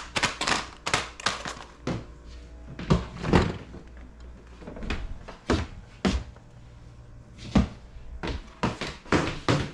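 Irregular knocks, clunks and clicks of items being handled and set down while a refrigerator is cleaned out, one every half second or so.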